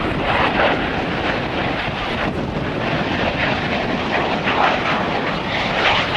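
Aermacchi MB-339 jet trainer's single Viper turbojet making a low pass, a loud steady jet noise.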